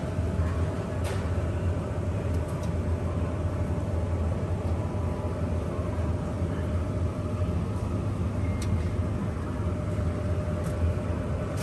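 Steady low rumble of a moving vehicle, with a few faint scattered clicks.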